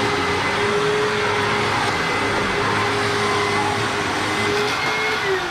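Hoover WindTunnel self-propelled upright vacuum running steadily with a constant motor whine. Near the end the pitch starts to fall as the motor winds down.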